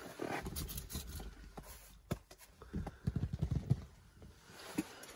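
Handling noise inside a fabric ice fishing tent: clothing and tent fabric rustling, with a few light knocks and a run of low thumps about three seconds in.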